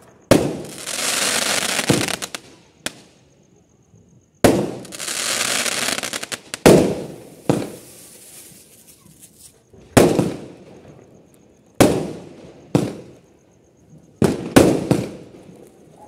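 Aerial fireworks (sky shots) bursting overhead: about ten sharp bangs at uneven intervals, several close together near the end. The first two bangs are each followed by about two seconds of hissing as the glittering stars burn.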